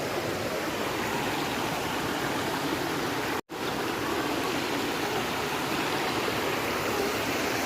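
Forest stream water rushing steadily, cut off for a split second about three and a half seconds in.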